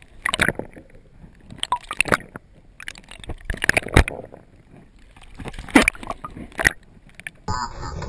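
Water sloshing and gurgling over a submerged camera housing, in irregular loud bursts. Near the end it gives way to a steadier hiss as the camera comes up out of the water.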